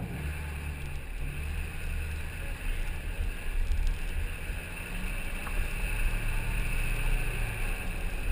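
Duramax LBZ 6.6-litre V8 turbo-diesel pickup engine running steadily as the truck rolls slowly, with a deep low rumble and wind buffeting the mirror-mounted microphone.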